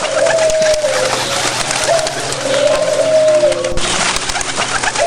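Bird cooing: a series of long, low, drawn-out calls with a slight fall in pitch, about one a second, over a steady background hiss.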